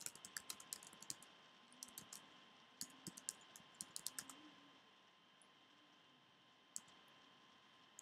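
Faint keystrokes on a computer keyboard, typing in quick irregular taps that thin out and stop about four and a half seconds in, with one more keystroke near the end.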